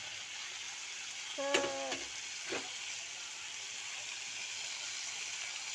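Vegetables frying in oil in a kadai, sizzling steadily.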